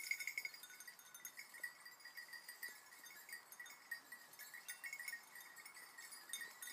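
Faint jingling of small bells on the collars of basset griffon vendéen hounds working through cover, a thin ringing that comes and goes irregularly.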